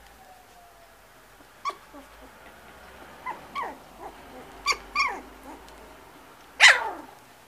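White puli puppies giving short, high yelps and whimpers as they tussle. There are about half a dozen, most dropping in pitch, and the loudest comes near the end.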